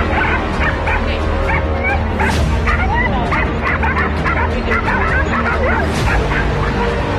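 Several dogs barking and yipping rapidly and excitedly at a tethered young wild boar piglet, the calls overlapping with no break.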